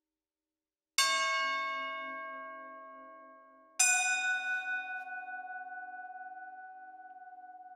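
Steel sound sculptures struck twice with a mallet, about three seconds apart, each giving a bell-like metallic tone that rings on and slowly dies away. The second tone keeps ringing with a slow wavering throb.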